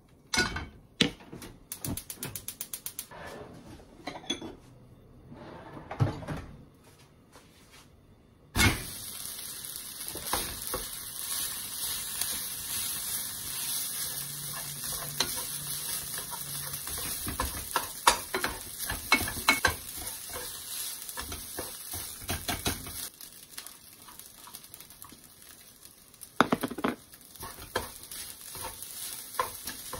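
Scattered knocks and a short run of rapid clicks, then cooked rice hits hot oil in a frying pan with a sudden loud sizzle. The sizzle runs on steadily while the rice is pressed flat against the pan with a wooden spatula to build a crisp crust. Near the end the sizzle eases and the spatula scrapes and stirs the rice.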